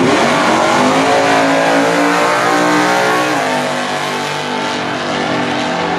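Two drag cars launching off the start line at full throttle. The engine note climbs steeply, drops sharply at a gear change about three seconds in, then climbs again as they pull away down the strip.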